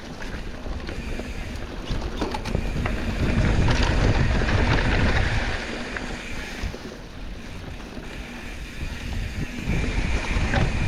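Mountain-bike ride on a dirt single track: a low rumble of wind on the microphone and tyres on the trail, with a few sharp clicks and rattles. The rumble swells about three seconds in, eases off, and builds again near the end.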